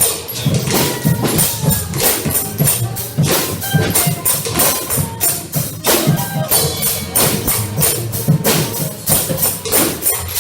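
Percussion music with a steady beat of sharp, bright strikes over low pitched notes.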